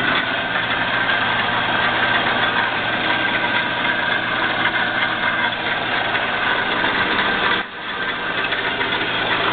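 Horizontal metal-cutting band saw running at speed: a steady motor hum under the noise of the moving blade and drive, dipping briefly about seven and a half seconds in.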